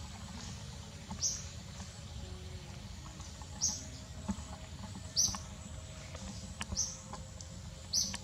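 Short, very high chirps, five of them spread about a second and a half apart, each dropping slightly in pitch, over a steady low outdoor rumble.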